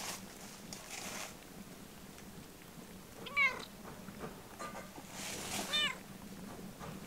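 Domestic cats meowing: two short meows, a quick rising one about three and a half seconds in and a second, arched one near six seconds in.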